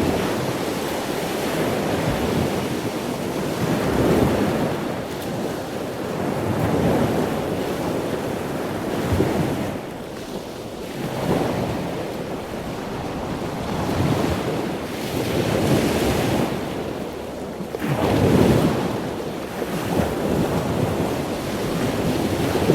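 Wind buffeting the microphone: a low rushing noise that swells and fades every few seconds.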